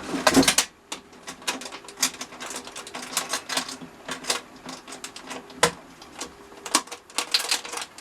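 Irregular light clicks and taps of small wooden workpieces and hand tools being handled and set down on a workbench, a few sharp knocks a second, over a faint steady hum.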